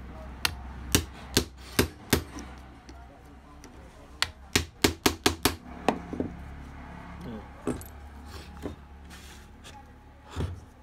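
Screwdriver tip clicking and tapping against an alternator stator's copper windings and iron core as the windings are pried loose: sharp, separate metallic clicks, irregular at first, then a quick run of about eight near the middle, with a duller thump near the end.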